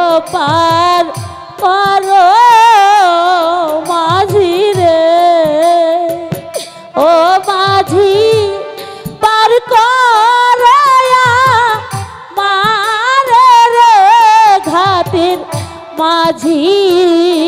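A woman singing a Bengali jatra folk song into a microphone in long phrases, her pitch wavering with strong vibrato, over steady drum beats.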